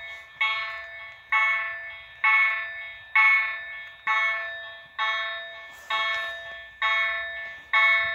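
Railway level-crossing warning bell striking about once a second, each ring sharp at first and then fading, warning that a train is approaching.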